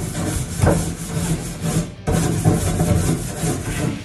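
Rough back-and-forth scrubbing on a Weber Traveler grill during cleaning, in uneven strokes with a brief pause about halfway through.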